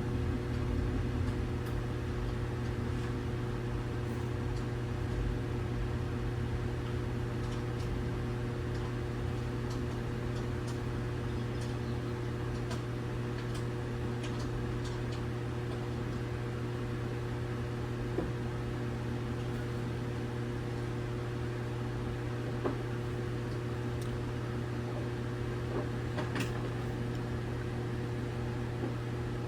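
A steady machine hum with a few faint clicks.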